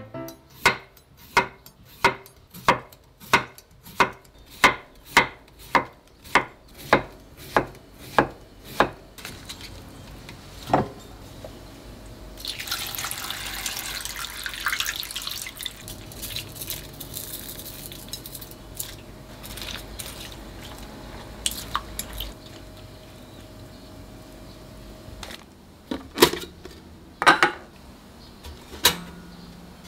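Chef's knife slicing a cucumber on a wooden cutting board: a steady run of chops, about two a second, for the first nine seconds or so. About four seconds later, water is poured from a glass jug onto cucumber slices in a glass bowl, splashing for a few seconds. A few sharp knocks come near the end.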